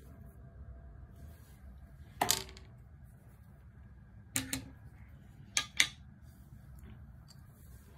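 Golf clubs knocking and clicking against each other as they are handled: five sharp clicks, one about two seconds in, then two near four and a half seconds and a close pair near six seconds, over a low steady hum.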